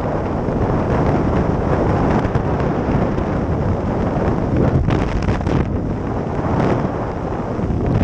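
Heavy wind buffeting on the helmet-mounted camera's microphone of a motorcycle moving at road speed, a steady rushing noise that nearly buries the engine. Brief flutters come in about five seconds in and again near seven.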